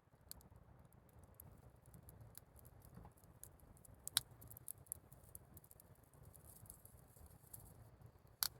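Wood campfire crackling faintly, with scattered small irregular pops and two sharper pops, one about four seconds in and one near the end.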